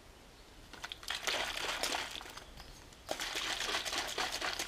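Water-filled plastic Isostar sports bottle shaken hard upside down in two bouts, starting about one and three seconds in: water sloshing inside and the plastic body crackling. This is a leak test of the screw cap, and the bottle seals without dripping.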